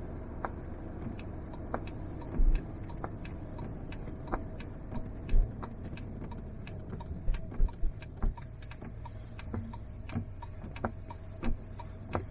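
Car driving, heard from inside the cabin: a steady low engine and road rumble, with many small clicks and rattles and a few louder low thumps, about two and a half, five and a half and seven and a half seconds in.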